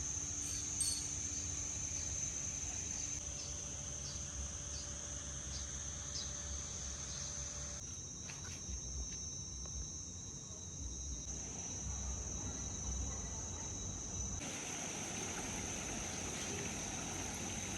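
A steady, high-pitched chorus of insects droning, over a low rumble. The background changes abruptly about eight seconds in and again a few seconds before the end.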